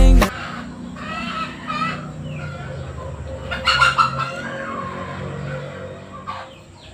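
Music cuts off right at the start. After it come chickens clucking in short wavy calls, loudest about four seconds in.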